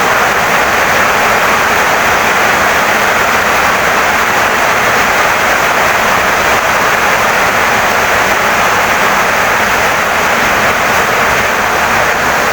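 Heavy rain pouring down steadily on a wooden house, an even, unbroken rush with no separate drops standing out.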